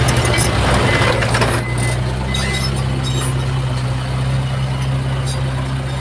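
Heavy machine's diesel engine running steadily, with extra rushing noise over it for the first second and a half that then drops away.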